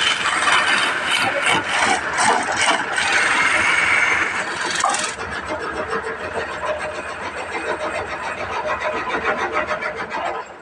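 Wood lathe running, with a hand turning tool cutting into the spinning wooden blank in a loud rasping cut. About five seconds in the cutting noise drops away, leaving a quieter steady machine noise.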